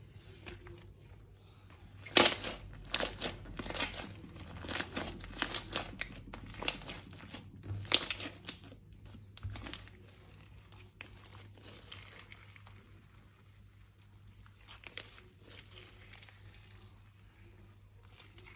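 Crinkling and crackling in quick, irregular bursts, dense and loudest in the first half, then thinning out after about ten seconds to a few scattered crackles.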